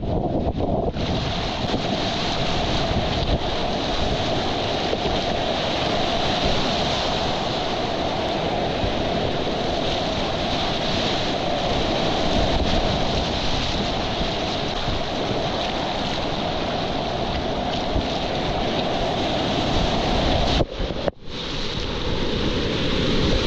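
Whitewater rapids rushing loudly and steadily, with wind buffeting the microphone; the sound is briefly muffled near the end.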